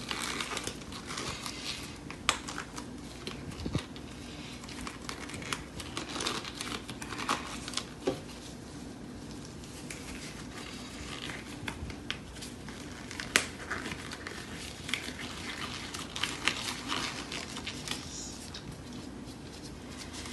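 Disposable gloves crinkling and rustling as they are pulled on and worked over the hands, with scattered light clicks and taps.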